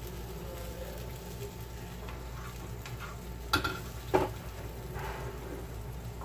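Spatula scraping fried mutton liver across a flat tawa griddle and pushing it onto a plate, with two sharp knocks of the spatula a little past the middle, about half a second apart, over a steady low hum.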